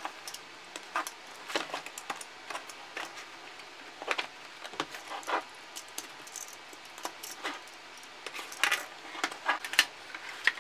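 Box cutter blade slitting packing tape on a cardboard shipping box and the cardboard being handled: a run of irregular short scratches and clicks, with a louder cluster near the end as the box is opened.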